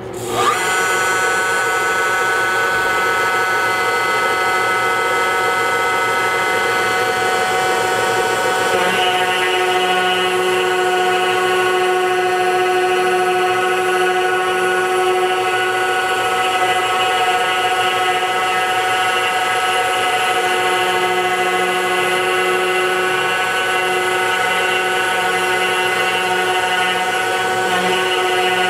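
Carbide 3D ER11 compact trim router spinning up about half a second in, then running steadily at its lowest speed, about 10,000 RPM, on a desktop CNC. Its bit is routing a heart outline into a wooden board, and the sound changes about nine seconds in.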